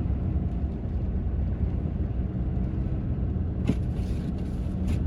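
A car driving, with a steady low rumble of engine and road noise and two faint clicks near the end.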